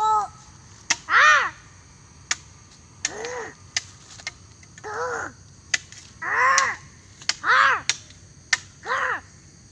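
A crow cawing six times, each caw short and rising then falling in pitch, one to two seconds apart. Sharp clicks sound between the caws.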